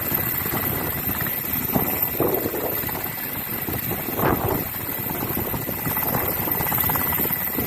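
Helicopter in flight, its rotor blades making a steady rapid chop.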